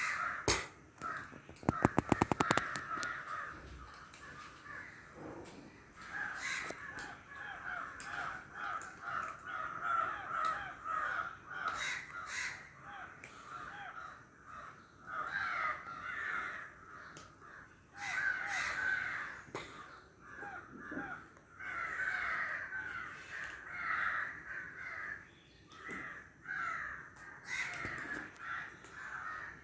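Many birds calling over and over in short, overlapping calls. About two seconds in there is a loud rapid clatter.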